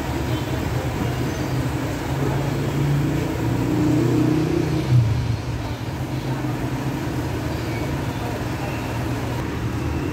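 A motor vehicle's engine running, its pitch rising a little about three seconds in and dropping back about five seconds in.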